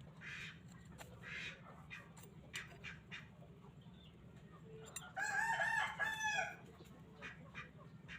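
A rooster crows once, about five seconds in: one drawn-out call of about a second and a half. Faint short scraping strokes repeat under it.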